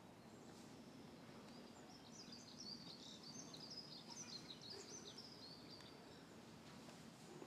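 Faint songbird song: a quick twittering run of short high chirps lasting about four seconds, starting about two seconds in, over a quiet background.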